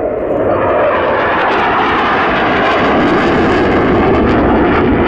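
Saab J35 Draken jet fighter flying past, its Volvo RM6 afterburning turbojet giving a loud, steady jet roar that grows a little brighter and louder through the middle of the pass.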